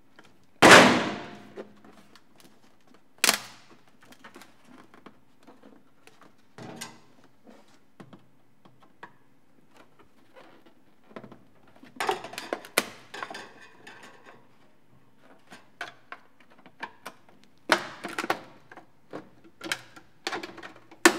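Clear plastic case of a crank-powered radio being pried apart with a screwdriver: sharp plastic clicks and cracks at irregular intervals as the old glue holding the case halves gives way, in clusters about twelve, eighteen and twenty-one seconds in. The loudest sound is a single hard knock with a ringing tail about a second in.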